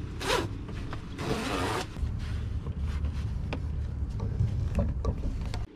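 Canvas wheel cover rustling and swishing as it is pulled over a sailboat's steering wheel: one short rustle, then a longer one about a second in. A steady low rumble and a few light clicks, ending in a sudden cut.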